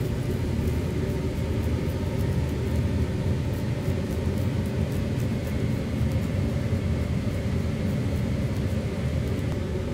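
Steady low rumble of a ventilation fan, with faint light ticks scattered over it.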